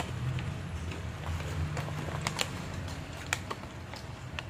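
Crunching of salted-egg potato chips being chewed: a few sharp, crisp clicks over a low steady hum.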